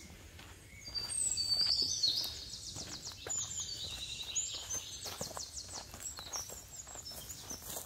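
Footsteps on a gravel trail, with a songbird singing high, rapid trilled phrases over them from about a second in, loudest near the start of the song.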